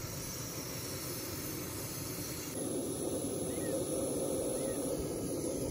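Butane/propane cartridge camping stove burning under a camping kettle of water: a steady hiss from the burner, a little louder and fuller from about two and a half seconds in.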